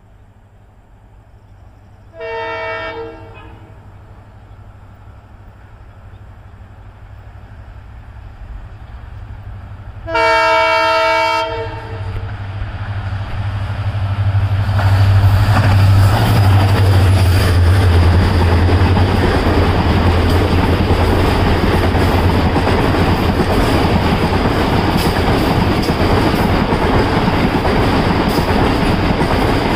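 EMD diesel locomotive sounding its horn twice, a short blast about two seconds in and a longer, louder one about ten seconds in. Its engine rumble then grows as it approaches and passes, followed by the passenger coaches running by with wheels clacking over the rail joints.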